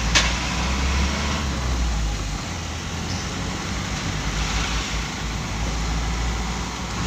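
Delivery truck's engine running and its tyres on the road, heard from inside the cab as a steady low rumble. There is one sharp click just after the start.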